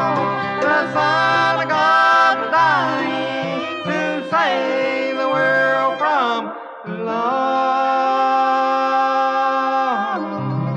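Bluegrass gospel band playing the closing bars of a song: sliding melody lines, a brief drop about six and a half seconds in, then a long held final chord that ends about ten seconds in.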